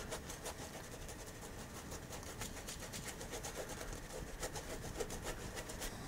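Small bristle fan brush scrubbing back and forth across an oil-painted canvas, a soft scratchy rasp of quick strokes, several a second, as wet colours are blended together.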